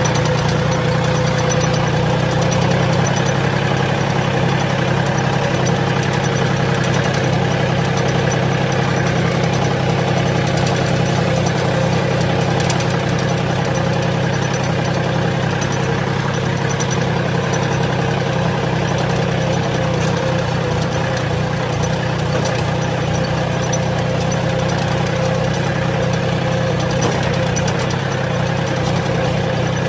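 John Deere tractor's diesel engine running steadily as the tractor drives slowly over a rough dirt track, heard up close from the driver's seat as a loud, even, low drone.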